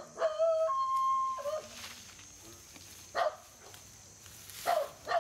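A dog barking about four times in short, sharp barks. Just after the first bark comes a long whining call that holds one pitch and then steps up to a higher one before breaking off; this call is the loudest sound.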